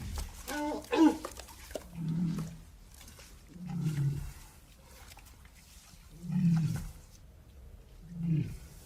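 Walrus vocalising: a few short, higher-pitched calls near the start, then four separate low bellowing calls spaced about two seconds apart.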